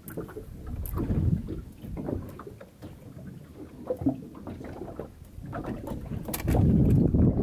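Wind buffeting the microphone and water moving around a small open boat, with a few short knocks from gear in the boat. A heavy gust of low rumble comes near the end.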